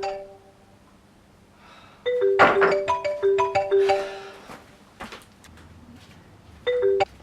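A phone ringtone playing marimba-like notes in short repeating runs, with a pause between rings. The last run is cut off abruptly near the end. A loud rustling rush comes over the second ring, and there is a single click a little later.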